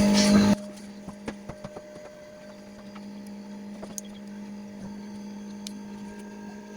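Steady electrical hum in the background with a few faint small clicks; a louder stretch cuts off suddenly about half a second in. The hum is the noise of a camera recorder on charge.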